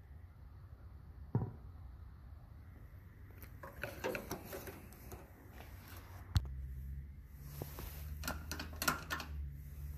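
Scattered metal clicks and knocks from hands working the parts of a 1955 Allis Chalmers B tractor before it is started: a sharp knock about a second and a half in, a run of clicks around four seconds, a louder knock past six seconds and more clicks near the end. A low steady hum sits underneath; the engine is not running.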